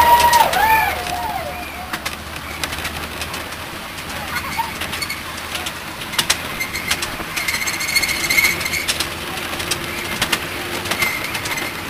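Miniature railway train running along the track, with a steady running noise and irregular clicks of the wheels over rail joints. A few wavering rising-and-falling calls sound in the first second, and a high wheel squeal comes from about seven to nine seconds in.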